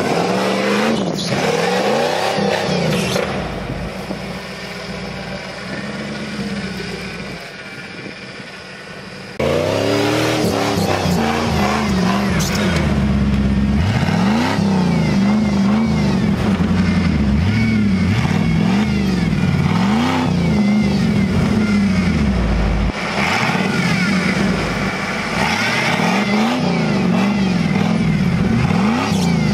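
Off-road 4x4 engine revving up and down over and over, its pitch rising and falling every second or two as the driver works the throttle. About nine seconds in it becomes suddenly louder, and the rising and falling revving goes on.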